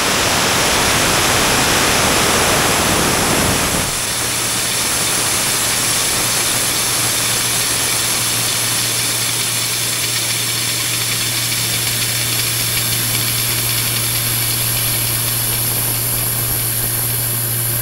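Pressurized nitrogen from a pressure test hissing out of an AC unit's suction-line service valve through a core remover, blowing trapped compressor oil out of the line. The hiss is loudest at first and drops about four seconds in to a steady rush, with a steady low hum under it from then on.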